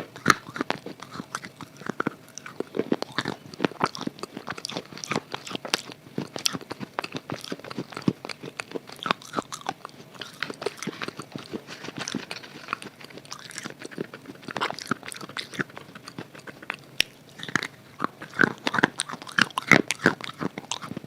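Close-up biting and chewing of a hard red chalk (khadi) bar coated in red khadi paste: dense, irregular sharp crunches and crackles, with louder bites near the end.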